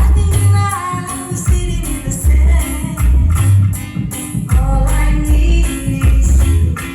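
Loud music with a heavy bass line and a singing voice, played through a large PA sound system during a soundcheck.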